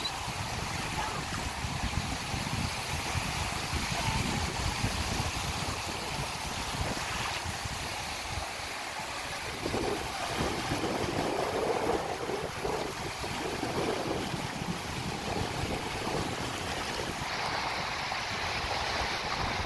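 Small waves breaking and washing up over the sand in the shallows, a steady surf wash that swells slightly as each wave comes in. Wind buffets the microphone throughout.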